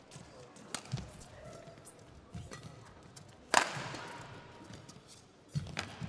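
Badminton rally: sharp cracks of rackets striking the shuttlecock and thuds of players' feet on the court. The loudest hit, about three and a half seconds in, rings on through the hall.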